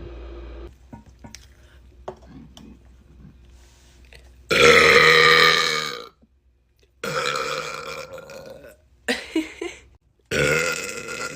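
A woman burping: a long, deep burp starting about four and a half seconds in, the loudest of the stretch at about a second and a half, then two more, each cut off by a moment of dead silence. The first few seconds hold only faint clicks.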